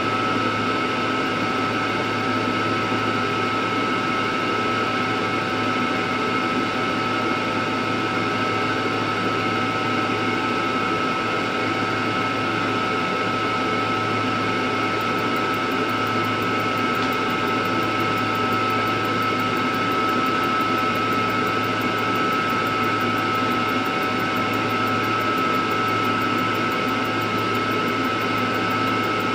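Mini laser repair machine and its fume extractor running steadily: an even fan whir with a constant high whine over it.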